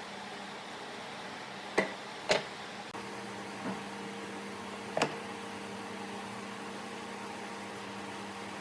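Steady low machine hum with a few sharp knocks: two close together about two seconds in, a softer one near four seconds and another about five seconds in.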